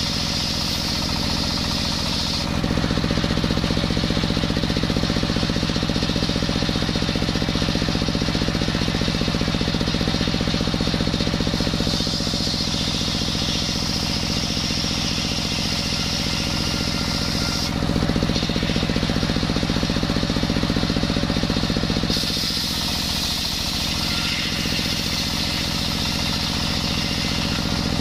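Table circular saw driven by a single-cylinder stationary diesel engine, running steadily while ripping coconut timber. It grows louder and heavier in two long stretches as the blade cuts through the wood, from a couple of seconds in to about the middle and again briefly later, with a higher hiss from the free-running blade in between.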